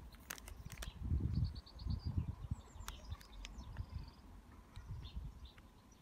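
Faint low bumps and rustles close to the microphone, with a few quick high bird chirps in the background about three seconds in.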